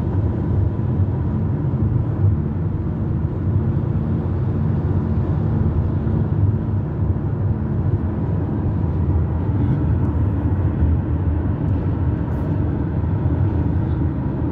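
Steady low rumble of tyre and engine noise inside a car's cabin while it drives along a highway.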